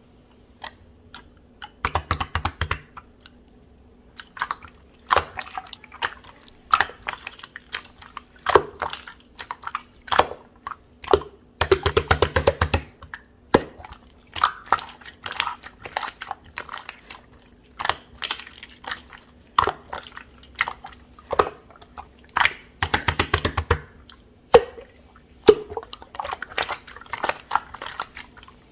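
Clear slime being squeezed, stretched and poked by hand, giving many sharp popping clicks from trapped air bubbles. There are three longer runs of rapid clicking, about 2, 12 and 23 seconds in.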